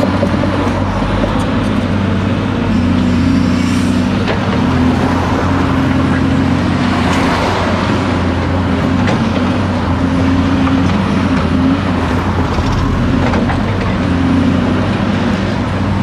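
Caterpillar 330C LN crawler excavator's diesel engine running steadily under hydraulic load as the bucket digs into roadside soil, its pitch shifting as the load changes. About halfway through, earth and stones scrape loudly against the bucket.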